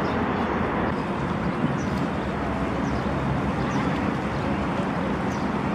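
Steady outdoor background rush, with a few faint short high chirps scattered through it.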